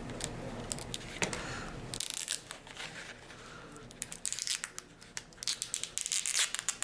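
Label wrapper of an old-style EpiPen auto-injector being cut with a multi-tool knife blade and peeled off by hand. A few sharp clicks in the first two seconds, then irregular crinkling and tearing crackles that come thicker in the second half.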